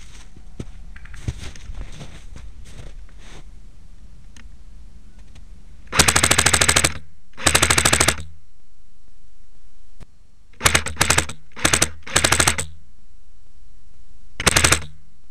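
Airsoft gun firing on full auto in a series of loud bursts of rapid strokes: two bursts of about a second each, a cluster of shorter bursts, then one last short burst near the end.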